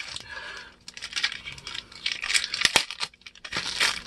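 Plastic wrapping on a notched steel guitar-neck straightedge crinkling and rustling in irregular bursts as it is handled and unwrapped, with one sharp click near the middle.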